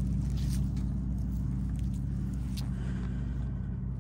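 A steady low mechanical hum, like a running engine, with a few faint clicks or rustles over it.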